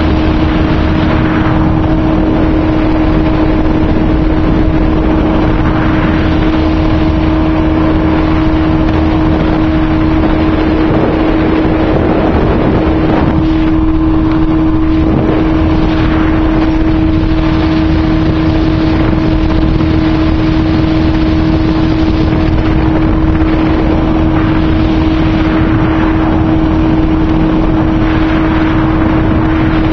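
A small speedboat's motor running steadily at speed, heard from on board, holding one even pitch throughout, with wind noise on the microphone.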